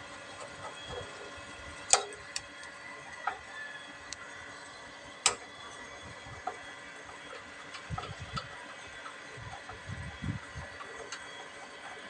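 Scattered sharp clicks and light metallic taps, the loudest about two seconds in, with a few soft thumps later, as a screwdriver works on the brass gas valve of a gas water heater to take off its gas solenoid, which the technician suspects is faulty.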